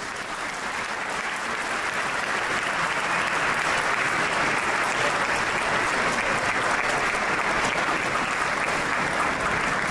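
Crowd applauding, swelling over the first few seconds and then holding steady.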